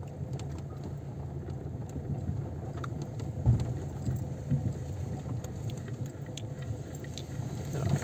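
Car driving slowly, a steady low engine and road rumble heard from inside, with a sharp thump about three and a half seconds in.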